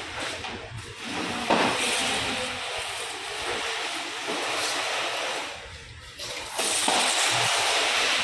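Water rushing and splashing in two long spells, with a short lull about six seconds in.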